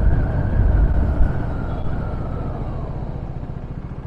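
Motorcycle riding under a heavy low rumble of wind, its engine note sliding down and the whole sound dying away steadily as the bike slows down.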